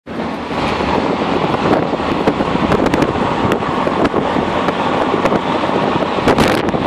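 Wind rushing and buffeting over a phone's microphone: a loud, steady rush with frequent crackles.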